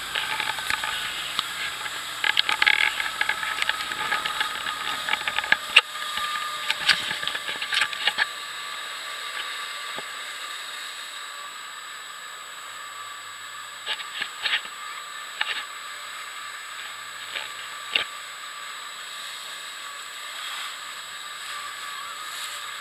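Steady rushing noise of a motorboat running at speed, wind and churning water hissing past, with scattered knocks and clicks, most of them in the first eight seconds.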